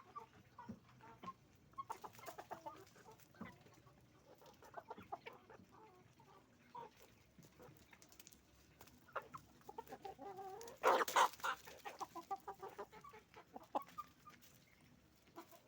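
Flock of hens and roosters clucking with many short, scattered calls, and one much louder, harsh squawk about eleven seconds in.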